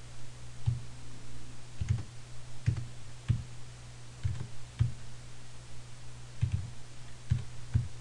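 Computer keyboard being typed on, irregular dull keystrokes about one a second as numbers are entered into a spreadsheet, over a steady low hum.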